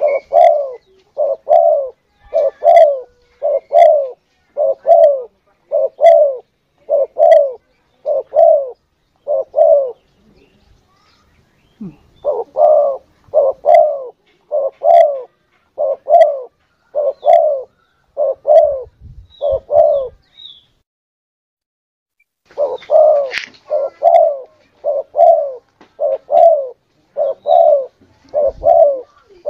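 Spotted dove (tekukur) cooing: a long series of loud coo notes, about one a second, broken by two short pauses. It is used as a lure call for hunting doves.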